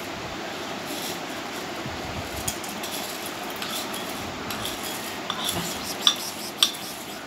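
A plastic spoon scraping and clinking against ceramic bowls as dry cornflakes are tipped from a small bowl into a larger one, with a few sharper clinks near the end.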